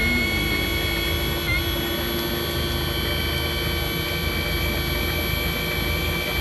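Echo 58V electric trimmer powerhead driving a geared outboard lower unit, running steadily with a high-pitched electric-motor whine. Its pitch dips briefly about a second and a half in.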